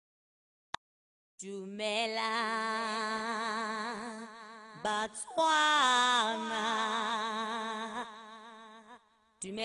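Background music: a slow, held vocal line that wavers with vibrato over a steady low drone. It starts after about a second and a half of silence and fades out near the end.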